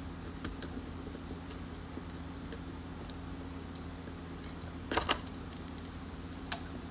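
Faint scattered clicks and taps from hands working open a cut trading-card pack, with two short louder crinkly rustles about five seconds in, over a low steady hum.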